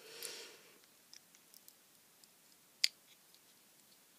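Faint handling noises from a disassembled arc lighter being turned over in the fingers: a brief rustle at the start, then a few small clicks of its metal case and plastic parts, with one sharper click nearly three seconds in.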